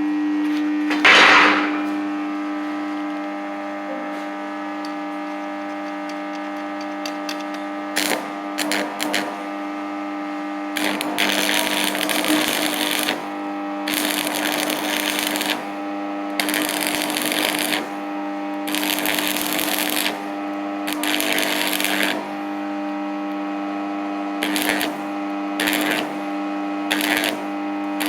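Electric arc welding in a series of short runs, each a crackling burst of one to two seconds, with shorter tacks near the end, over a steady hum.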